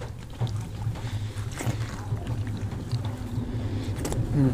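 Eating by hand from banana leaves: fingers mixing and scooping soft, wet rice, with faint squelches and a few small clicks, over a steady low hum.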